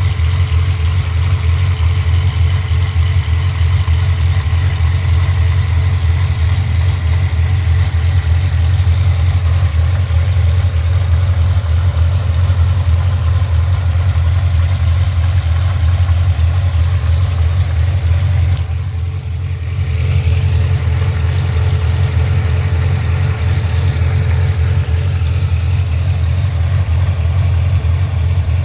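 The Davenport Stage 5-tuned supercharged LS9 V8 of a 2012 Corvette ZR1 idling steadily, a deep even rumble that dips briefly about two-thirds of the way through.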